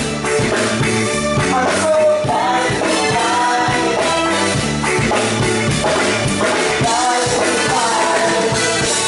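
Live band music with a singer performing a song at steady, loud volume.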